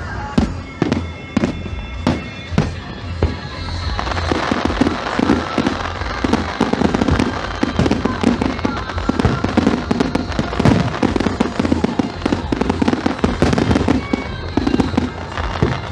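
Fireworks display: aerial shells going off one after another with sharp bangs. From about four seconds in, the bangs thicken into a dense run of many quick small pops.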